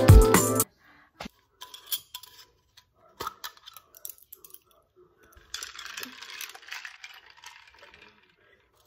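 Background music cuts off suddenly under a second in. Scattered light clinks and rattles follow, from a metal straw and ice in a glass jar of iced coffee, and past the middle come a few seconds of soft slurping as she sips through the straw.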